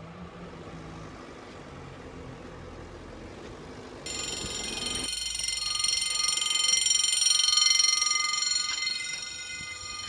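An electric train approaches with a low rumble and hum. About four seconds in, a level crossing's warning bell starts ringing, a loud, steady, high ringing that swells and then eases off near the end.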